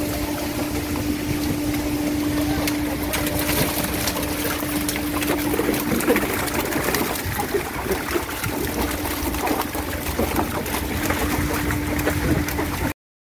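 Sea catfish flapping and slapping in the wet bottom of a wooden boat as a seine net is emptied into it, with splashing water and a steady motor hum underneath. The sound cuts off to silence near the end.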